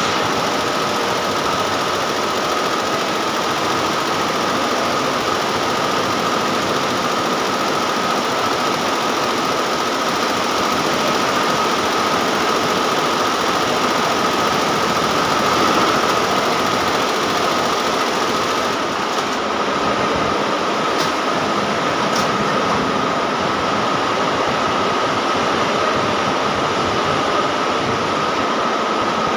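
Diamond multi-head computerized embroidery machine running, its many needle heads stitching together in a steady, dense mechanical clatter with a constant high whine. Two brief sharper clicks come a little past two-thirds of the way through.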